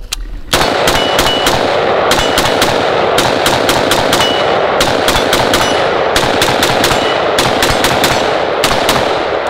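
SIG Spear LT 5.56 rifle fired in a rapid string of shots, a few a second without a break, starting about half a second in.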